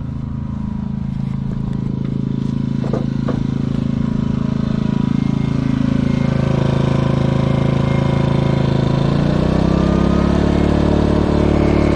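Portable generator's engine running steadily, then speeding up with a rising pitch about nine seconds in. Two brief clicks about three seconds in.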